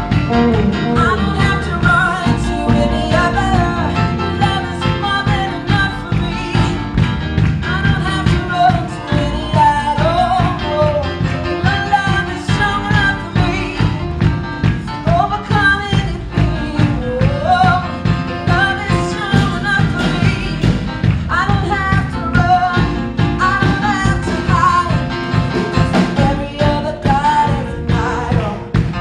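Live upbeat praise and worship music: a full band with a steady driving beat and voices singing.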